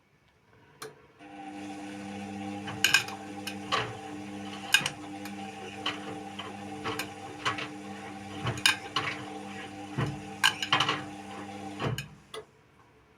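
Indesit WIU 81 washing machine turning its drum during the wash phase of a quick 30° cycle: the motor hums steadily, with irregular clicks and knocks from the tumbling load. The hum starts about a second in and stops near the end as the drum pauses.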